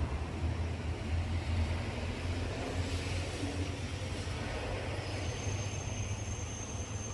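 Scania 124G 360's inline-six diesel idling steadily, heard from inside the cab as a low, even hum.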